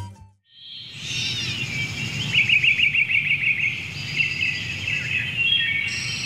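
Birds chirping and trilling over a steady low background rumble, fading in after the end of a stretch of music, with a rapid trill about two seconds in.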